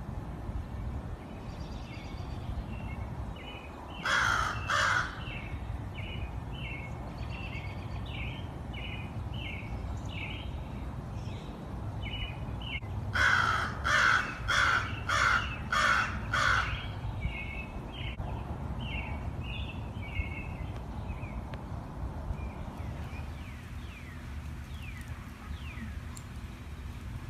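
Crow cawing: two harsh caws about four seconds in, then a quick run of about six caws around the middle.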